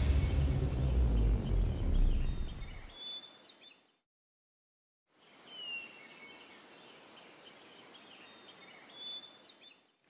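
A deep low rumble fades away over the first three seconds under faint bird chirps. After about a second of silence, faint birdsong comes back: scattered short chirps and whistles over a soft hiss.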